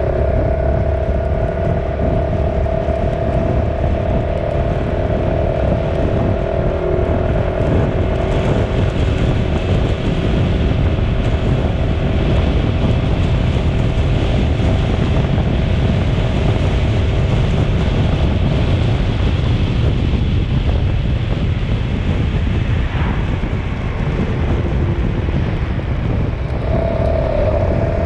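Steady vehicle running noise: a dense low rumble with a steady two-note whine over it. The whine fades about two-thirds of the way through and comes back near the end.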